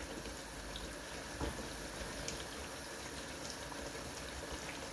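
Spiced yogurt-and-milk curry sauce simmering in a pot: a steady bubbling hiss with a few faint clicks.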